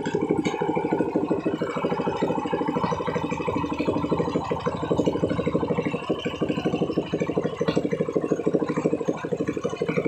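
Kawasaki Ninja motorcycle engine idling steadily, a fast even stream of firing pulses with no revving.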